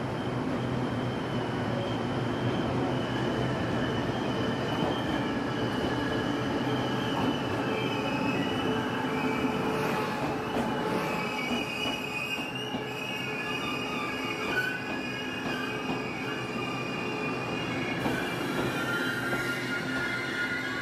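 A push-pull Tze-Chiang express hauled by E1000-class electric locomotives arrives at a station platform. Its wheels and brakes squeal in several high, wavering tones over the steady rumble of the cars as it slows.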